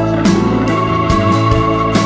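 Background music with held keyboard chords and a steady beat.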